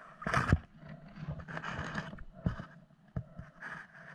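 Underwater handling noise as a diver grips a speared pike: irregular knocks and scrapes, the loudest cluster about half a second in.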